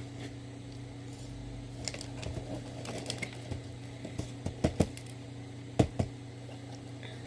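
Scattered clicks and light rustles of snack packaging being handled and opened, a few sharper clicks in quick succession past the middle, over a steady low hum.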